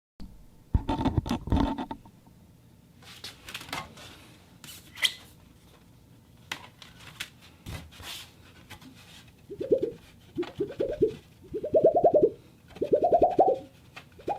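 A plastic sheet being handled for foley: crinkling and crackling at first, then from about nine and a half seconds a series of short rippling bursts, roughly one a second, each rising in pitch.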